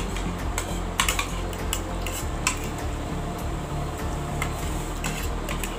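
Spoons and forks clinking and scraping against plates as several people eat, in scattered short clicks over a steady low hum.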